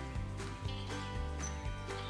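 Background music with a steady beat under held notes.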